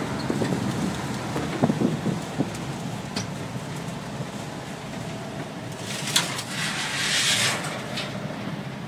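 Cab interior of a 1972 VW camper van under way, its air-cooled flat-four engine and road noise making a steady rumble. There are a few knocks about two seconds in and a burst of hiss around seven seconds in.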